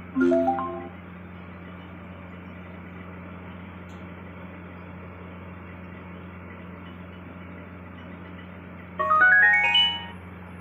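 Low steady electrical hum from a homemade speaker box. A short run of rising electronic chime notes plays just after the start, and a longer, louder rising run of chime notes plays near the end.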